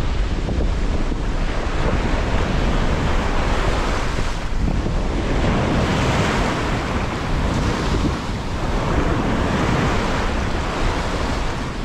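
Ocean surf washing up over the sand at the shoreline, with strong wind buffeting the microphone. The rush of water swells louder around the middle as a wave washes in.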